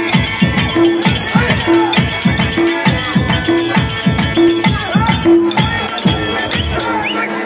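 Live folk theatre music: drums beating a fast, steady rhythm, about four strokes a second, with a short low note repeating about once a second and a wavering melody line above.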